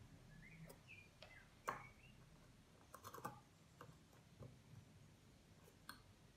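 Near silence with a few faint, scattered clicks and taps from a multimeter test probe touching the threaded steel rod electrodes as its leads are handled. The loudest click is a little under two seconds in, and a quick cluster of clicks comes about three seconds in. A few faint short chirps sound in the first two seconds.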